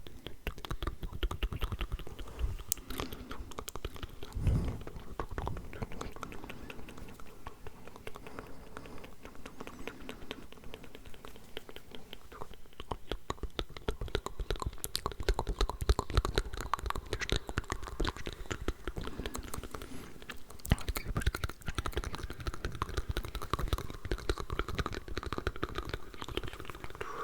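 Layered ASMR mouth sounds close to the microphone: a dense, continuous stream of overlapping wet clicks and smacks.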